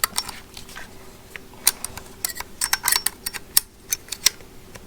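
Quick metal clicks and clatters of an oscillating multi-tool blade being pushed and turned against the tool's blade mount, bunched into a run of rapid taps in the middle. The blade does not fit this tool's mount.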